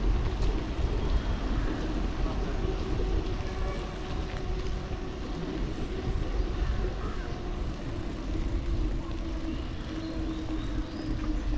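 Steady low rumble of wind on the microphone and road traffic, heard from a moving bicycle, with a faint steady engine hum underneath.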